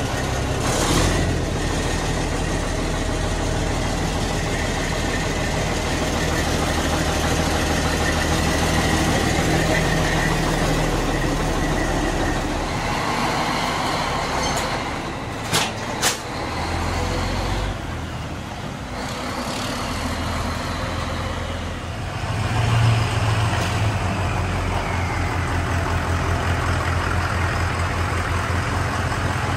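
Caterpillar C12 inline-six diesel engine in a 1997 Ford LT-series truck running at idle. A couple of sharp clicks come about 16 seconds in, the engine note changes a moment later, and it briefly rises about 23 seconds in.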